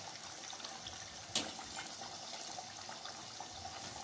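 Modaks deep-frying in hot oil in a kadai, a steady sizzle with fine crackling. One sharp clink about a second and a half in, as the wire strainer works in the pan.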